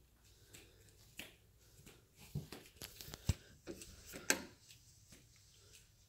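Rustling and light clicks from a phone being handled as it is carried along, with two sharper taps, a little after three and four seconds in.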